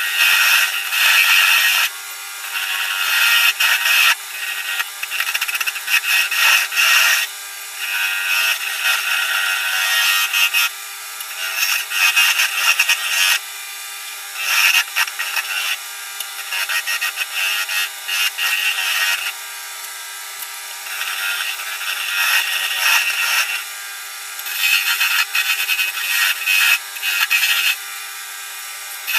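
Wood lathe spinning a celery wood pen blank on a mandrel while a hand-held turning tool scrapes and cuts the wood in repeated passes of a second or two each. A faint steady hum runs underneath.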